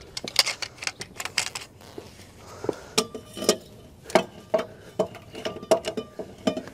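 Irregular metallic clanks and clinks, some ringing briefly: a steel pipe wrench knocking against the truck's shock absorber and frame as it is fitted to hold the shock body from spinning.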